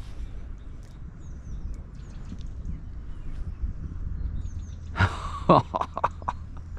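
Low steady outdoor rumble with a few faint bird chirps, then about five seconds in a man lets out a loud exasperated sigh followed by short breathy bursts, his frustration at missing a fish.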